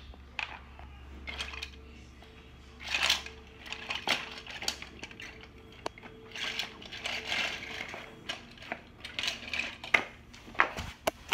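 Toy train track pieces, wooden and plastic, clattering and knocking as they are handled, in scattered clicks and short rustles. A faint steady hum underneath stops a little past halfway.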